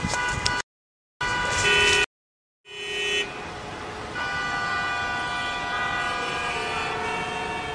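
Car horn honking: two short blasts that cut off sharply, then a long held blast from about three seconds in over street noise.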